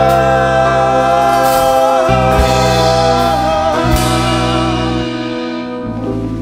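Live rock band playing: several male voices sing a held harmony over electric guitar and bass guitar, with the bass note moving a few times beneath the sustained chord.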